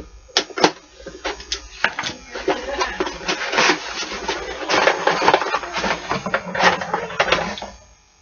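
Mystery tackle box being opened and unpacked by hand: a few sharp snaps and clicks, then steady crinkling and rustling of packaging that stops near the end.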